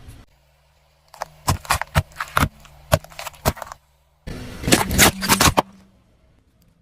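Hard plastic objects cracking and snapping as a car rolls over them: a run of sharp cracks, a short pause, then a denser cluster of cracks.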